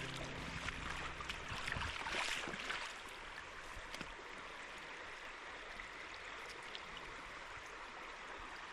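Water running in a shallow stream, with uneven splashing for the first three seconds, then a steady rush.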